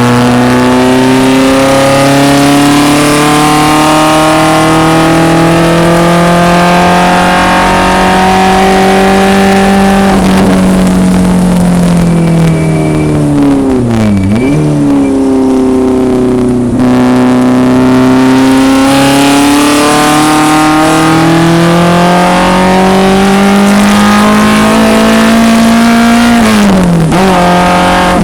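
1974 BMW 2002 race car's four-cylinder engine heard onboard under hard acceleration, revs climbing steadily. About ten seconds in the revs fall away for a corner, dipping low with a quick rev blip on the downshift, then the engine pulls up through the revs again, with an upshift near the end.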